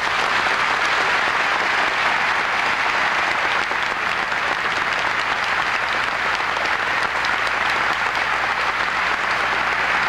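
Audience applauding steadily, a dense clapping that holds at an even level throughout.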